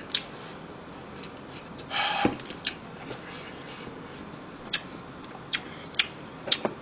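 Close-miked eating sounds: chewing with scattered short, sharp clicks, and one louder brief noise about two seconds in.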